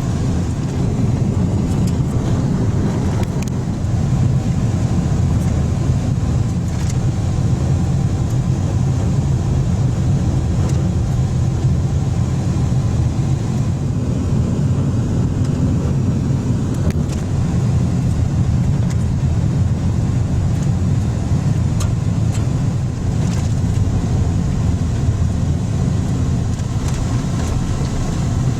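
Steady low rumble of a running vehicle's engine and road noise, holding level throughout.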